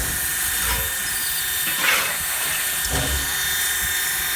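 Steam locomotive hissing steadily, with a low thump near the start and another about three seconds in.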